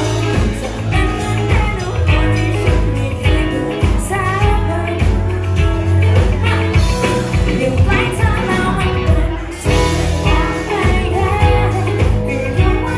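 Female singer with a band playing a pop-rock song, with drums keeping a steady beat under the vocal.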